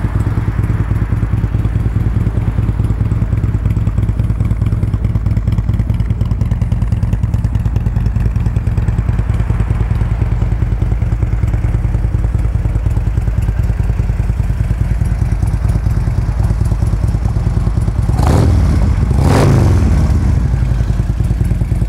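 2013 Harley-Davidson CVO Road King's Screamin' Eagle Twin Cam 110 V-twin idling with a steady low rumble through Vance & Hines exhaust. Near the end it is revved briefly twice, the pitch rising and falling each time.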